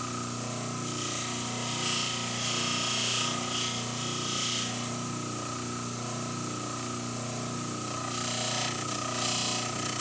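Old double-arbor motor spinning a 3M Scotch-Brite wheel with a steady hum and whine. A small steel hammer head is pressed against the wheel in three bouts of abrasive hiss, polishing it to a near-mirror finish.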